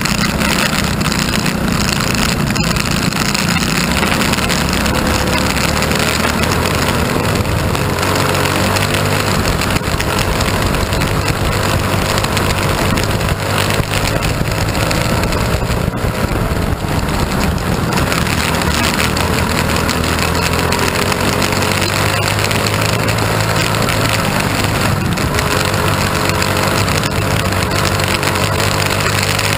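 Mini wedge race car's engine running hard at racing speed, its note rising and falling a little through the laps, heard onboard with a steady rush of wind on the microphone.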